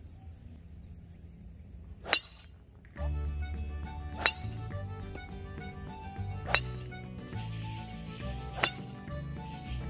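Four sharp metallic pings of a golf driver's metal head striking the ball, about two seconds apart, the first the loudest. Background music with a steady bass line comes in about three seconds in.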